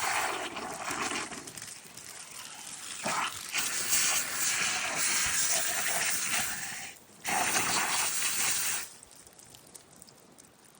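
Water running and gushing over a freshly gutted chicken as it is rinsed clean. It breaks off briefly about seven seconds in, comes back, and stops about nine seconds in.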